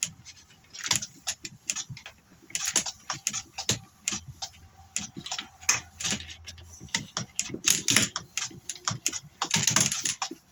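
Irregular plastic clicks and rattles as a pressure washer's hose reel drum is turned by hand and the high-pressure hose is wound onto it.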